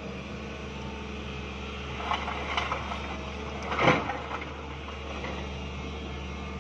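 A SANY crawler excavator's diesel engine runs steadily while it tips a bucket of broken stone onto a rock pile. Rocks clatter about two seconds in, and there is one loud crash just before four seconds.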